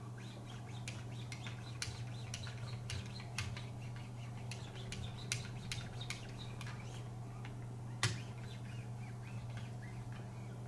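Light, irregular clicks and ticks from a Wicked Edge sharpener and its fine-grit paddles being worked, with a sharper click about eight seconds in, over a steady low hum.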